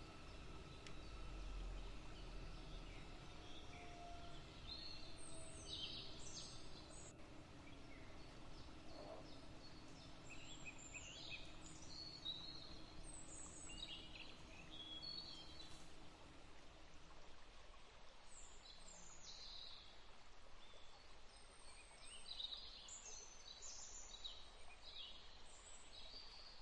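Faint bird chirps: short high calls that sweep downward, coming in scattered groups over a steady low background hiss.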